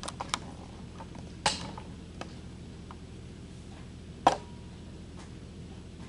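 Quiet room tone with a low steady hum, broken by a few short sharp clicks and knocks, the loudest about four seconds in.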